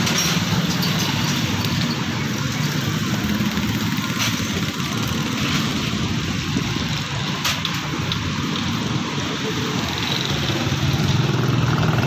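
A small engine running steadily with a low hum, amid street traffic. A couple of sharp clicks cut through, the clearest about seven and a half seconds in.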